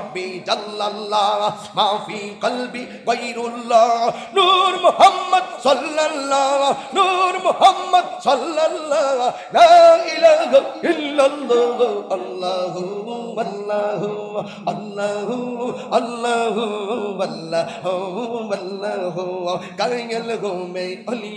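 A man chanting Islamic devotional verse in a melodic, sung voice, with a steady low held tone underneath.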